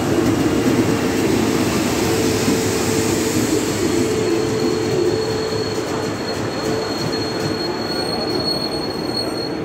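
Passenger coaches (n-Wagen) of a train hauled by a class 111 electric locomotive rolling slowly into the platform with a loud, steady rumble of wheels. A thin, high, steady squeal from the braking wheels fades out near the end as the train comes to a halt.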